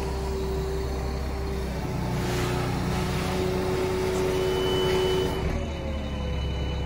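Boom truck's engine running steadily while its knuckle-boom crane drags a load, with a steady whine over the engine. The engine note picks up about two seconds in and eases back near the end.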